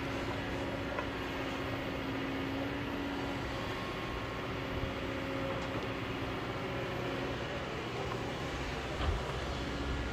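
Kobelco hydraulic excavator's diesel engine running steadily under load as it digs, lifts a loaded bucket and swings the boom, with a steady whine over the engine noise. A single knock near the end.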